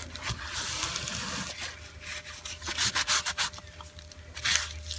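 Irregular rubbing and scraping strokes from handling the rusty metal parts of a caliper being taken apart: a longer scrape in the first second and a half, then shorter ones.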